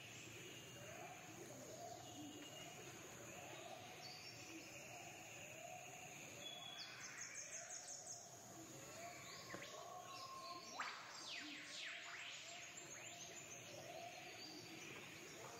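Faint birdsong: one bird repeats a short rising note about three times every two seconds, while quick falling high-pitched phrases come in around the middle, over a steady background hiss.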